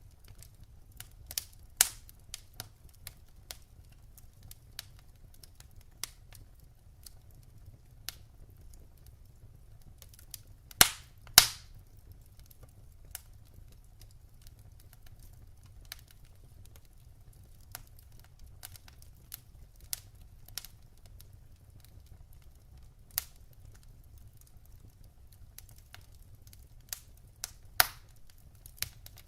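Wood fire in a fireplace crackling: irregular sharp pops and snaps, with the loudest pair about eleven seconds in, over a faint low rumble.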